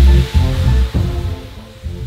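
Background music with a heavy pulsing bass and held notes, growing much quieter in the second half.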